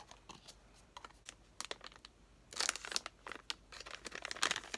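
Small cardboard blind box being opened, then the sealed black bag inside crinkling and tearing open, with the densest crinkling about two and a half seconds in and again near the end.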